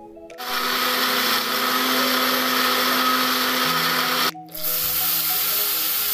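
A small electric blender runs for about four seconds, grinding red chilies, shallot and garlic in a little water or oil into a paste. After a sudden break, the chili paste is poured into hot oil in a frying pan and sizzles loudly. Background music plays underneath.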